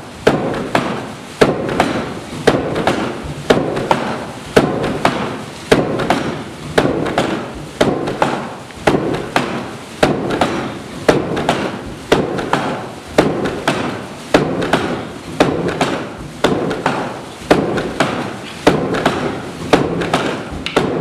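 Historic bar-iron tilt hammer (stångjärnshammare) with a wooden helve and iron head striking its anvil in a steady rhythm of about one blow a second, each a heavy knock with a short ring. A steady mechanical noise runs between the blows.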